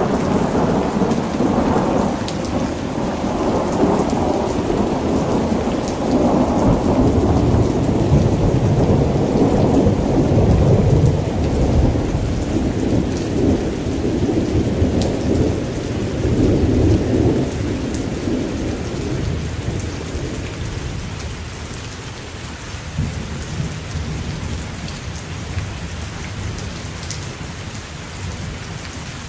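Steady rain with a long rolling rumble of thunder that swells through the first half and dies away about twenty seconds in, leaving the rain's patter with a few sharp drip ticks.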